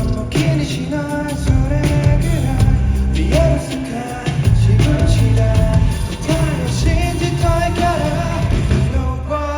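Pop-rock song played loud through a concert PA during a sound check: a male lead vocal over a pulsing bass line and drum kit.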